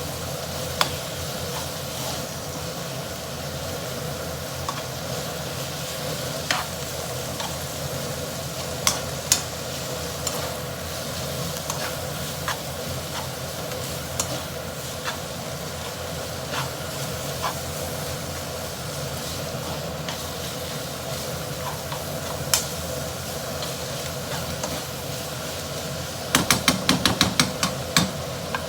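Black pepper udon being stir-fried in a pan: a steady sizzle with scattered sharp clicks of a utensil against the pan, and a quick run of clattering taps near the end.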